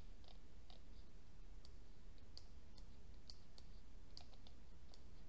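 Faint, irregular clicking of a computer mouse, a dozen or more small sharp clicks scattered unevenly, over a faint steady low hum.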